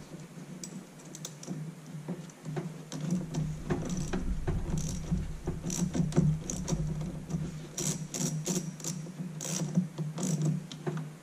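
Socket ratchet clicking in irregular runs as it loosens the 10 mm nut on the truck battery's negative terminal.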